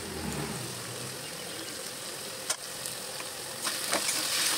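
Diced potatoes and carrots with curry leaves sizzling in oil in a steel kadai, with a metal spatula scraping and clinking against the pan as they are stirred. There is one sharp clink about halfway through and livelier clattering near the end.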